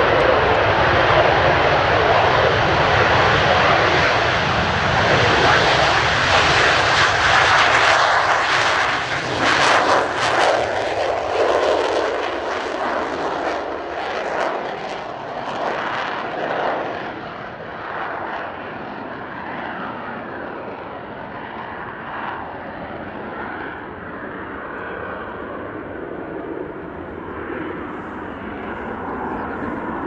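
The twin J79 turbojets of an F-4EJ Kai Phantom II at takeoff power. The jet noise is loud and crackling during the takeoff run and lift-off, then fades and grows duller over the second half as the jet climbs away.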